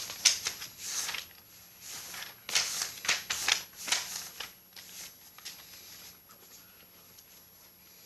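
Sheets of paper rustling and sliding as they are handled, in a run of irregular swishes that die away after about four seconds.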